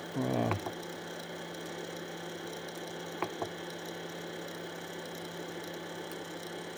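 Steady whir and hum of a Monoprice MP Select Mini V2 3D printer running its fan while the hot end and bed heat up. Two light clicks come about three seconds in.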